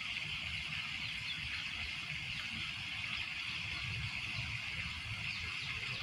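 Lake water lapping: a steady, even wash of noise with a low rumble underneath.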